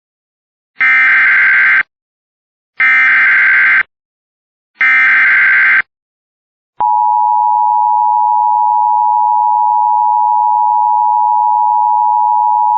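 Emergency Alert System SAME header: three loud one-second bursts of warbling digital data tones, about two seconds apart, then about seven seconds in a click and a steady EAS attention tone that holds on, the signal that a warning message (here a Special Marine Warning) follows.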